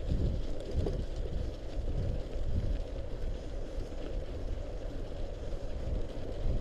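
Wind rumbling on the microphone mixed with mountain bike tyres rolling through packed, slushy snow on a climb.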